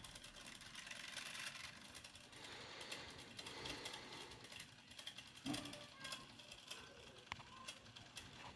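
Denon cassette deck's tape transport fast-winding after playback is stopped: a faint mechanical whir with small clicks, and a thump about five and a half seconds in. The deck is running on a newly replaced drive belt.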